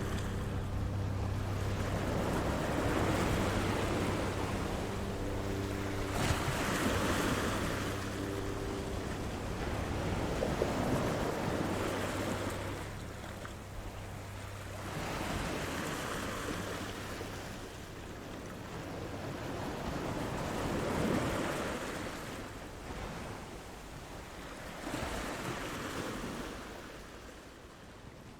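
Sea waves breaking and washing in, the sound swelling and ebbing about every four to five seconds. A steady low hum with several tones runs under the waves at first and fades out by about the middle.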